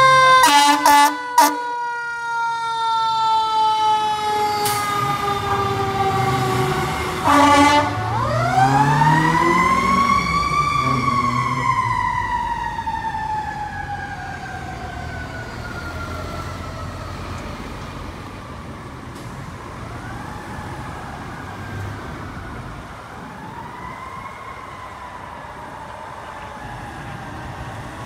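Pierce fire engine's siren winding up and then slowly winding down, with a few short air-horn blasts about a second in and another around seven seconds. The siren winds up again and falls away, then rises faintly twice more as it fades into the distance.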